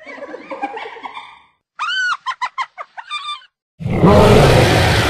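Cave hyena creature sound effects: a jumbled call, then a rising-and-falling whoop followed by quick giggling pulses. At about four seconds a loud, rough ceratosaurus roar begins and carries on.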